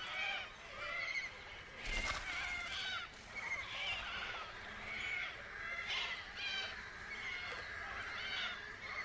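A flock of little corellas calling: many harsh, overlapping screeches that keep going throughout, with a short burst of noise about two seconds in.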